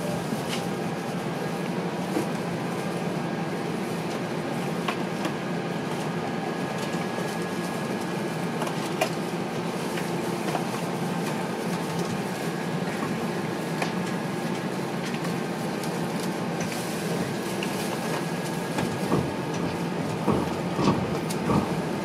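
Inside a TTC Flexity Outlook streetcar: a steady hum of its drive and ventilation, with scattered light clicks and rattles, and a few louder knocks near the end.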